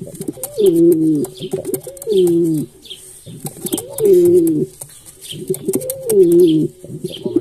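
Domestic pigeon cooing close by: a string of loud, low coos, each rising then falling, about every two seconds, with softer coos in between.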